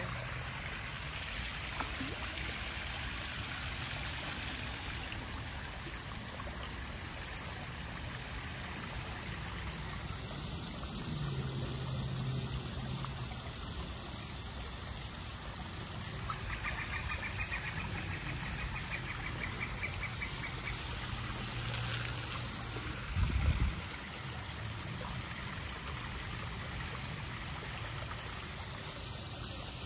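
Garden pond waterfall splashing and trickling steadily over rocks. A single brief low thump comes about three-quarters of the way through.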